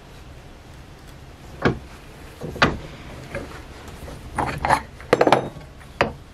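Separate knocks and metal clinks as a cast-iron bench vise is opened and a steel guide roller, its bearing just pressed in, is lifted out from between wooden jaw pads. The knocks start about a second and a half in, with a quick rattle of clanks near the end.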